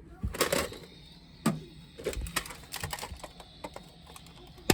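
Irregular plastic clicks and knocks of a toy Nerf blaster being handled, with a flurry of small ticks in the middle and a louder knock at the end.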